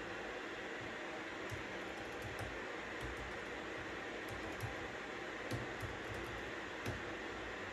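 Computer keyboard typing in short, irregular runs of light key clicks over a steady hiss of white noise.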